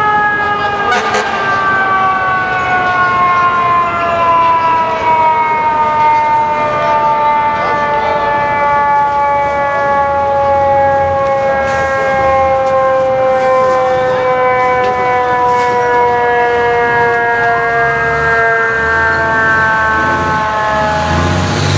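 FDNY fire truck's mechanical siren winding down, its pitch falling slowly and steadily the whole time. A truck engine's low rumble joins near the end.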